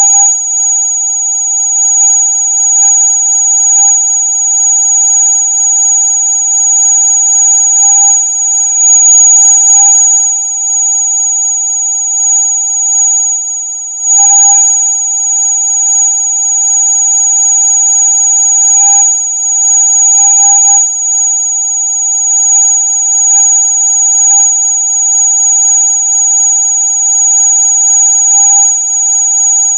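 Electronic rat-repellent sound: a loud, steady, high-pitched electronic tone made of several constant pitches held together, the highest one the strongest, unchanging like an alarm.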